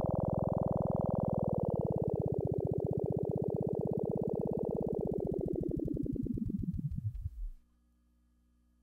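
A held electronic keyboard chord with an even pulsing, on an old broadcast videotape. Its pitch sags about a second in, then drags steeply downward while the pulsing slows, like a tape slowing to a stop, and it cuts out about three quarters of the way through. Only a faint hum is left after that.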